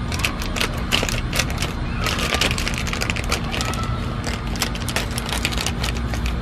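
Thin plastic bag crinkling and crackling in the hands, many small irregular crackles and clicks over a steady low rumble.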